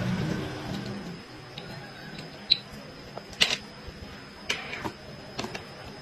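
Scattered light clicks and taps, about half a dozen over a few seconds, from plastic cosmetic jars, lids and small product boxes being handled on a counter.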